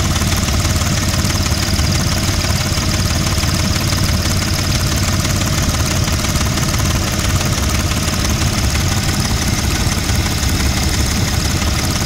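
Audi 3.2-litre V6 idling steadily with its valve cover off and the camshafts exposed, with a fast, even knocking noise. The owner, facing crank/cam correlation codes, is pretty sure it needs timing chains.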